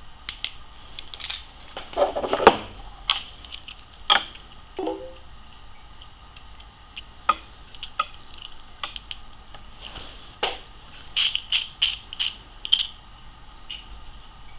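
Sharp clicks of LED flashlight push-button switches being pressed as the lights are switched on and off and handled. A rustle of handling comes about two seconds in, and a quick run of about six clicks about three-quarters of the way through.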